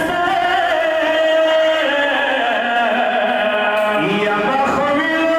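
A man's voice chanting a Pashto rubai, a mourning quatrain, in long held notes that waver in pitch, with a slide down and back up about four seconds in.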